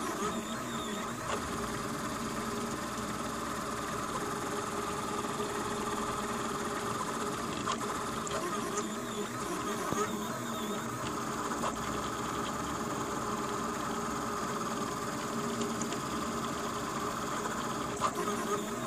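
Homemade delta 3D printer with NEMA 17 stepper motors printing at very high speed: a steady mechanical buzz with short rising and falling whines from the motors as the print head changes direction.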